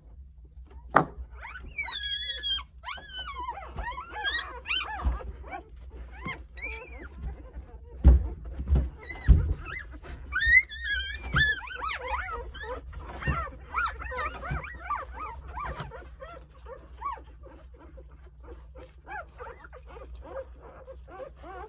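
Newborn Jindo puppies squeaking and whimpering in many short, high, wavering cries as they jostle against their nursing mother, with a few dull thumps about eight to nine seconds in.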